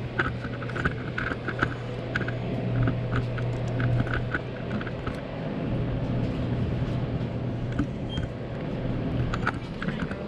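A steady low hum with scattered small clicks and light rattles.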